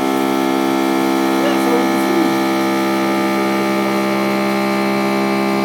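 Haas VF-3 CNC vertical mill running through an inside-threading pass: a steady hum made of many evenly spaced tones that holds level throughout.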